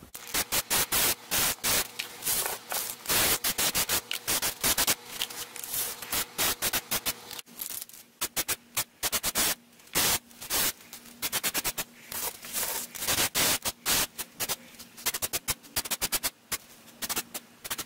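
Aerosol spray-paint can hissing in many short, rapid bursts, switching on and off again and again as the lure bodies are coated.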